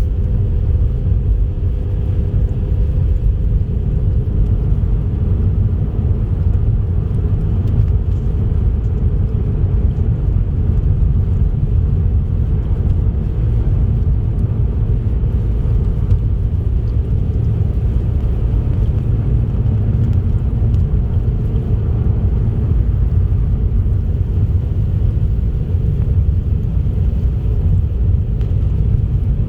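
A car driving along a highway: a steady low rumble of road and tyre noise with the engine, unchanging throughout.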